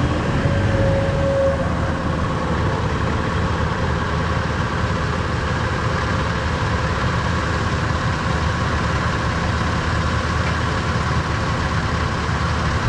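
Four-wheel-drive engine running steadily, with a faint steady whine above it, during an attempt to pull out a vehicle bogged to its chassis in mud; the vehicle does not budge.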